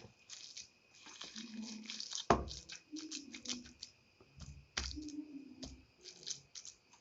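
Kitchen handling noises as oil is put on the stove to heat: light clinks and knocks, with two heavier thuds about two and a half and five seconds in.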